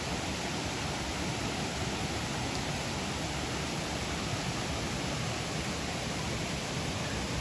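Fast mountain river rushing: a steady, even wash of flowing water.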